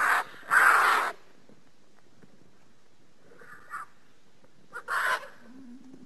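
Harsh, noisy bird-like calls made as a sound effect for the extinct giant flightless bird Dromornis stirtoni: two loud calls in the first second, a fainter one between three and four seconds in, and another about five seconds in.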